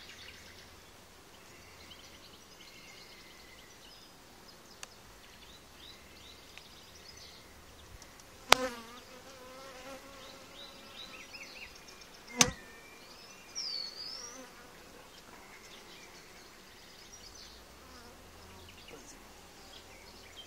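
Honeybees buzzing around an open hive, with two sharp knocks about four seconds apart.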